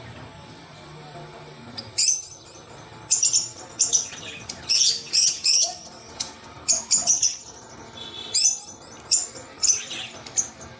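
Water splashing and sloshing in a plastic basin as a hand stirs it and dunks a rubber toy, in a run of short, sharp splashes.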